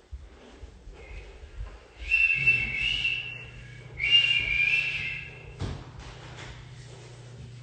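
A high whistling tone sounds twice, each time for about a second and a half, over a low steady hum that comes on about two seconds in.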